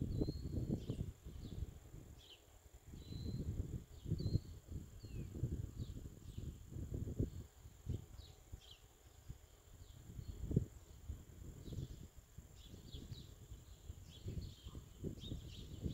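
Outdoor ambience: irregular low rumbling gusts, like wind buffeting the microphone, are the loudest sound, with faint short bird chirps scattered throughout and a steady high whine underneath.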